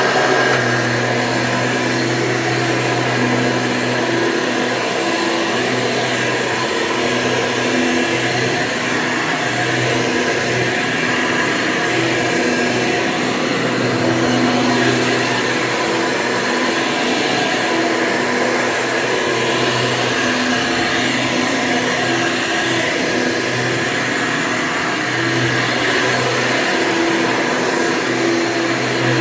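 Hoover Convertible upright vacuum cleaner running steadily, with a constant motor and fan whine over a low hum.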